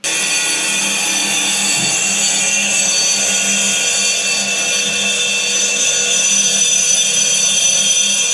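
Handheld power tool running steadily on a stone countertop piece at a round cutout, a loud even whine with several high steady tones that does not change.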